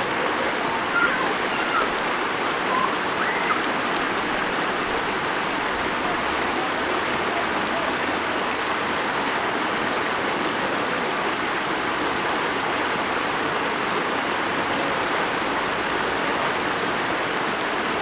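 Shallow stream water rushing over a low stony riffle: a steady, even rush.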